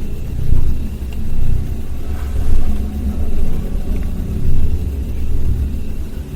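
Loud low rumble that swells and fades about once a second.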